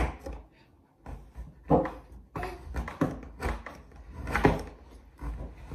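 Kitchen knife chopping dark chocolate into small pieces on a wooden cutting board: irregular knocks of the blade against the board.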